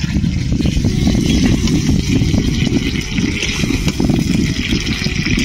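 Fried pointed gourds (potol) sizzling in spiced masala in a kadai as they are stirred, with short clicks and scrapes, over a steady low rumble.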